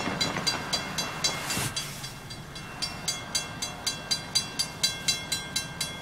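Railroad grade crossing bell ringing rapidly, about four strokes a second, as the crossing gates lower: the warning that a train is approaching. A brief hiss comes through about a second and a half in.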